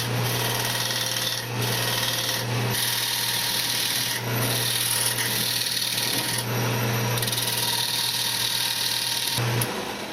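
Wood lathe running with a steady hum while a turning tool cuts the spinning wood, the cutting hiss coming and going in passes every second or two. Both stop abruptly near the end.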